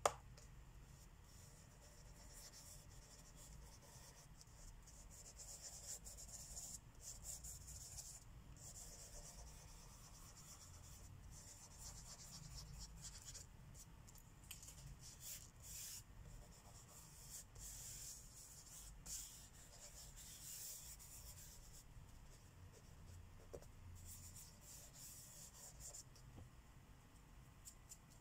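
Marker tip rubbing across paper in quick, repeated strokes as a mandala area is coloured in; faint and scratchy.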